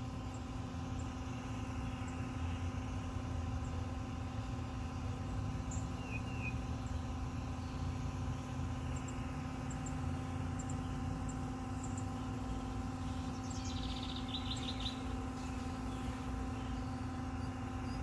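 Steady low hum made of several constant tones, with birds chirping faintly over it: a short chirp about six seconds in and a quick run of chirps about fourteen seconds in.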